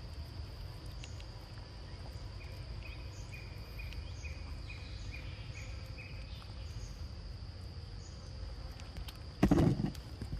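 Outdoor ambience with a steady high insect drone and, in the middle, a run of about eight short, evenly spaced chirps. About nine seconds in, a loud, brief thump.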